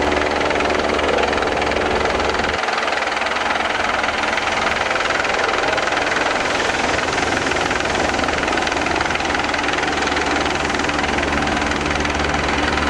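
Light helicopter hovering, its rotor and turbine running steadily. The deep low hum drops away abruptly about two and a half seconds in, leaving a steady rushing noise.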